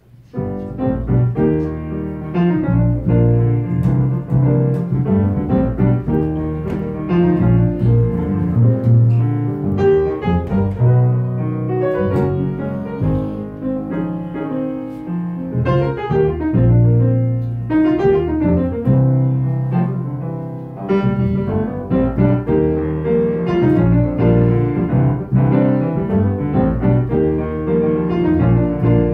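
Live jazz piano with upright bass starting up about half a second in, playing a simple diatonic original tune that sounds to its composer like an 80s TV theme song.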